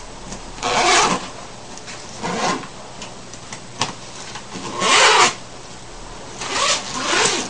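Nylon zipper on a soft-shell suitcase rasping in four short strokes as the still-locked zipper pulls are run along the split zipper, meshing its teeth together again.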